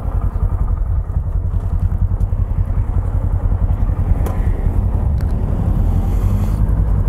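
Small single-cylinder motorcycle engine idling steadily close by, its firing pulses fast and even, with a light click about four seconds in.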